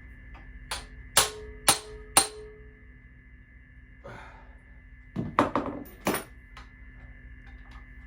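Hammer blows on a hand impact driver set to loosen a very tight Phillips screw in an engine cam cover. Four sharp metallic strikes in the first couple of seconds, one of them ringing briefly, then a few more quick blows about five seconds in.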